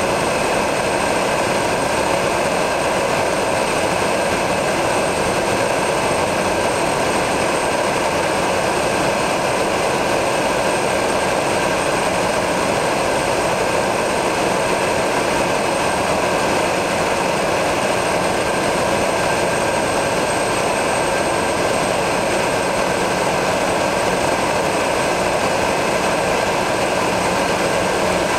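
de Havilland Canada DHC-3 Turbo Otter's turboprop engine and propeller, heard from inside the cockpit, running steadily in flight: a constant drone with a thin, steady high whine above it.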